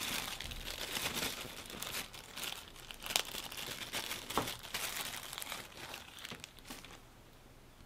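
Small plastic bag crinkling as it is handled and opened to take out a sensor module, with a few sharper crackles; it stops about seven seconds in.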